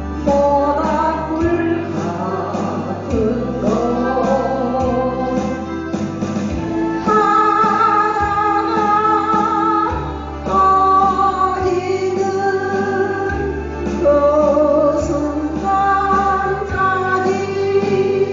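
A woman singing a slow Korean song with held, wavering notes over instrumental accompaniment with a steady bass line.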